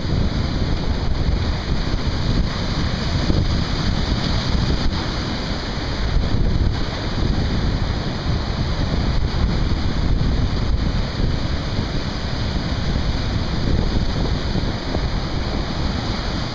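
Wind buffeting the microphone over the wash of breaking surf and waves, a steady noise heaviest in the low end.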